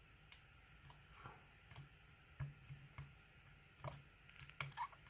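Faint, irregular clicks and ticks from a flat dimple pick working the pins inside a DOM ix 10 dimple lock under light tension during single-pin picking.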